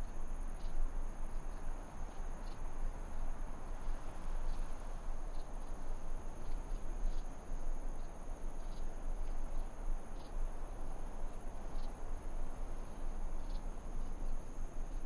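Crickets trilling steadily at a high pitch over a low rumbling hiss, with faint scattered ticks.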